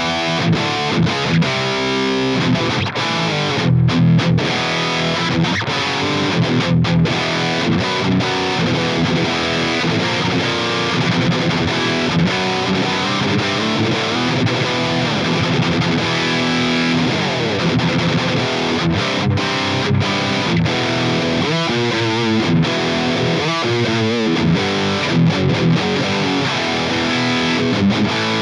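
Distorted electric guitar played through a Line 6 HX Stomp on a Mesa Boogie Rectifier amp model, with continuous riffing and held notes. Near the end, a couple of notes waver quickly in pitch.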